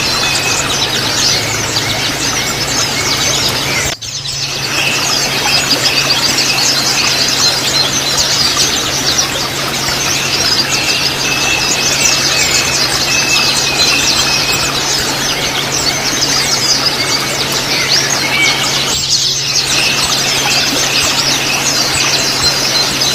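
White-eyes (pleci) twittering in a rapid, dense, high-pitched ngriwik chatter, with a steady low hum underneath. The sound briefly drops out about four seconds in and again near the end.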